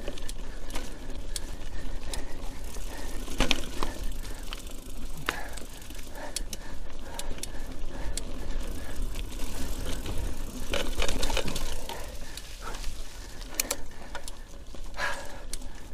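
Nakamura 730 Ltd mountain bike ridden along a dirt trail, its chain and frame clattering and rattling in uneven clicks over bumps and roots, over a steady low wind rumble on the action camera's microphone.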